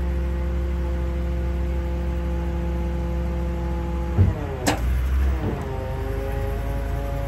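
Hydraulic pump of a Dynamic self-loading wheel lift whining steadily as the boom and lift arm rise. About four and a half seconds in the tone wavers around a single clunk, then settles at a slightly different pitch as the load on the pump changes.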